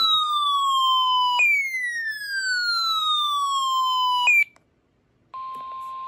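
An electronic falling whistle, loud, sweeping down to about 1 kHz twice, each glide lasting about three seconds and ending abruptly. After a moment of silence, a steady tone near 1 kHz with radio hiss comes in from the weather radio.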